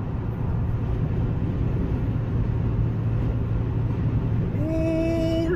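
Steady road and wind noise heard from inside a car driving at highway speed. Near the end a held tone sounds for about a second, rising at its start and then staying level.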